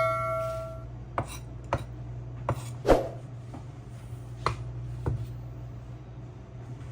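The ring of a struck metal kitchen utensil or pan fading out in the first second, then six light, irregularly spaced knocks and clinks of kitchenware, the loudest about three seconds in, over a steady low hum.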